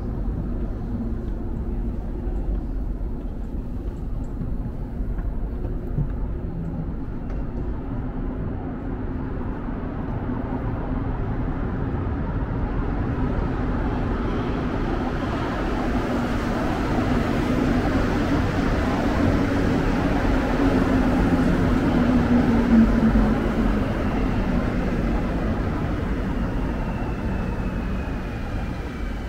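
Rubber-tyred Montreal metro train running. Its noise swells over about ten seconds to a peak, then eases, with a faint falling whine near the end.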